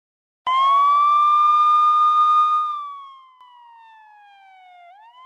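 A siren wailing. It starts suddenly about half a second in and holds one steady high pitch, then slowly falls and fades before rising again near the end.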